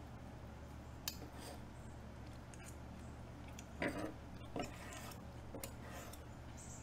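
Faint knife-and-fork clicks and scrapes against a wooden cutting board while slicing a bacon-wrapped flank steak roll, over a steady low hum. A tap comes about a second in, and a louder pair of scrapes and taps comes around four seconds in.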